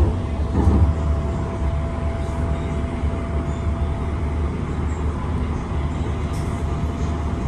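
Inside a Link light rail car running at steady speed: a constant low rumble with a thin, steady high tone over it.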